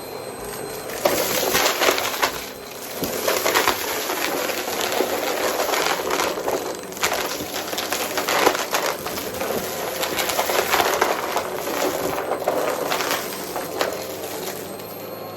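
Vacmaster vacuum cleaner running while vacuuming, a steady motor hum under many irregular crackles and clicks.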